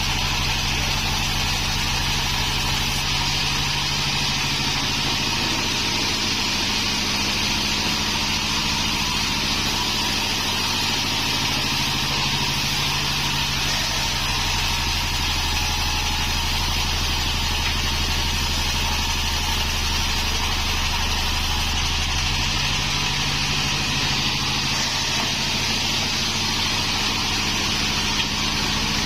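Band sawmill running steadily, its engine droning under a steady hiss. The low drone swells for several seconds in the middle.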